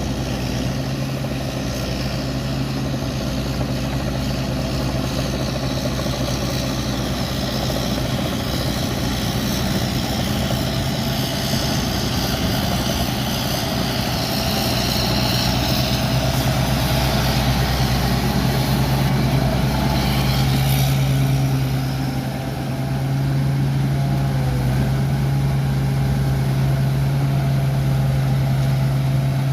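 Giant rice combine harvester's engine running steadily with a low hum, a little louder in the second half.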